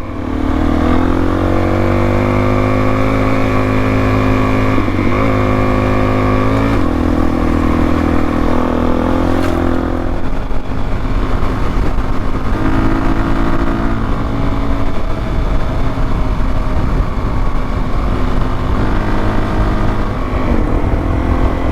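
Dual-sport motorcycle riding on pavement, its engine pitch climbing under acceleration and dropping at each of several gear changes, with steady wind and road noise.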